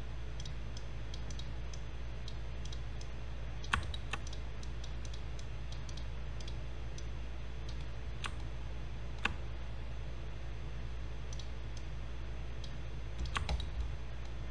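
Scattered clicks of a computer mouse and keyboard, a few sharper ones standing out and a quick run of them near the end, over a steady low hum.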